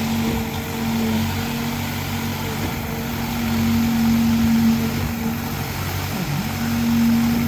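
Engine of the machinery at a concrete pour running steadily, its speed dipping briefly and recovering a little past six seconds in.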